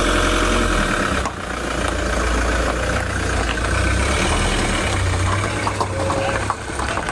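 Ford Transit motorhome's engine running at low revs as the van pulls slowly away.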